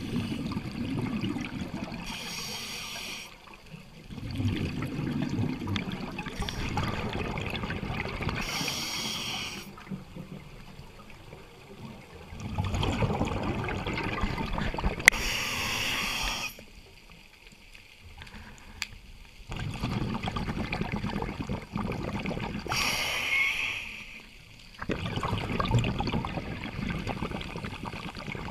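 Scuba diver breathing through a regulator underwater: a short hiss of air on each inhale, then a few seconds of bubbling exhaust on each exhale, repeating about every six to seven seconds.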